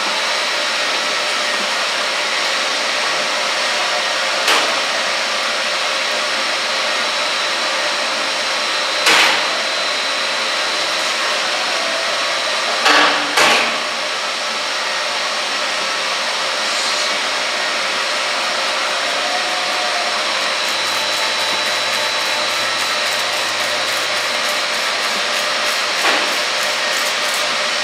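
Steady, loud blowing noise of brewery floor equipment, broken by a handful of sharp knocks. A faint, fast ticking comes in near the end.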